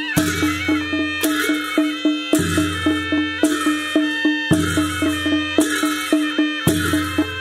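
Nepali panche baja band playing: two sahanai shawms carry a reedy melody that steps up and down in pitch, over a steady beat of about four strokes a second from a stick-beaten barrel drum and brass hand cymbals.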